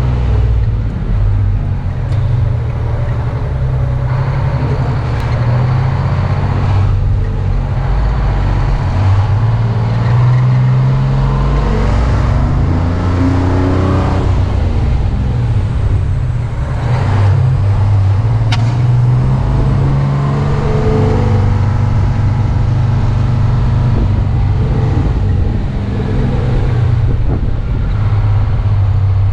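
Ford L-9000 fire truck's engine running as the truck drives, with road and wind noise. The engine pitch climbs as it accelerates about halfway through, then drops.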